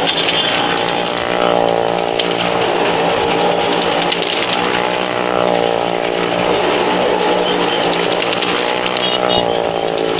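Car and motorcycle engines running hard as the vehicles circle the vertical wooden wall of a well-of-death pit. The engine pitch keeps rising and falling.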